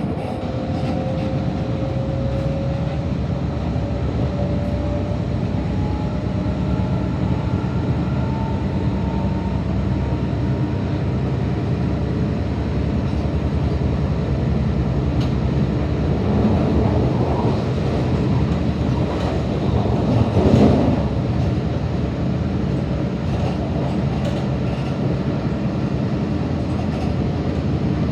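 MTR Tung Chung line K-Train heard from inside the car: steady rumble of wheels on rail, with a thin traction-motor whine rising in pitch over the first several seconds as the train gathers speed. The rail noise swells louder between about 16 and 21 seconds in.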